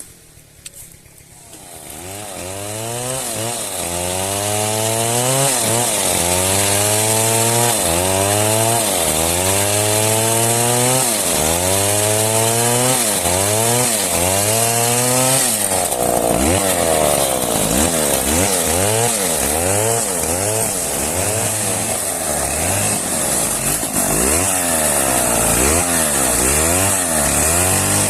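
Chainsaw cutting wood, starting about two seconds in. Its engine pitch rises and falls about once a second as it works, with a steady high hiss.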